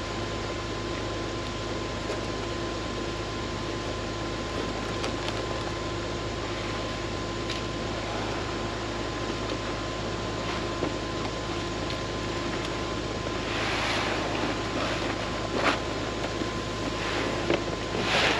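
Tractor and air planter running in place: a steady mechanical drone with a steady fan-like whine. About 13 seconds in, louder rustling, hissing noise is added on top.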